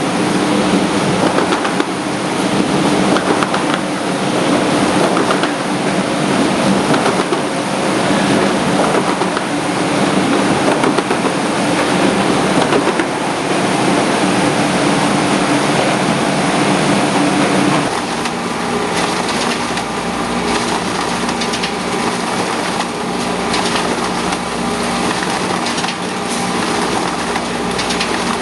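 Die cutting machine running: a steady, loud mechanical clatter and hum. The tone of the machinery changes about eighteen seconds in.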